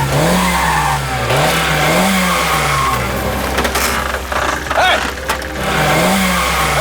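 Car engine idling and being revved up and down repeatedly, its pitch rising and falling about every second and a half.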